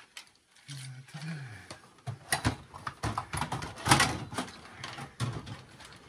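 Sheet-metal desktop computer case knocking and clattering as its power supply unit is worked loose and pulled out by hand. There are a series of sharp knocks, the loudest about four seconds in.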